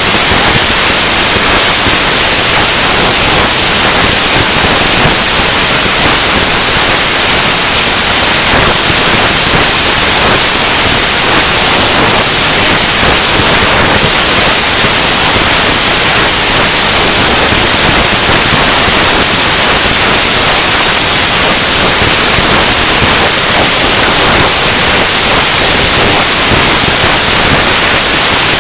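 Harsh noise music: a loud, unchanging wall of hissing static with fine crackle through it, strongest in the treble.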